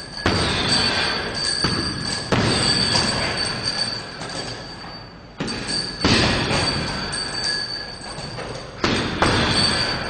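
Punches and kicks landing on a hanging heavy bag: about six sudden thuds a second or more apart, each fading over a second or two, over a steady high tone.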